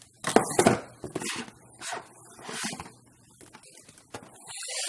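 Packaging being handled while a box is unpacked: several short bursts of rustling and scraping in the first three seconds, then a longer swelling rustle near the end.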